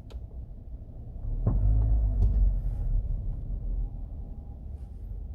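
Kia Seltos engine running with a knock that comes even without throttle, which the owner places right in the centre of the car. The low running sound swells for about two seconds from about a second in, with a few sharp knocks.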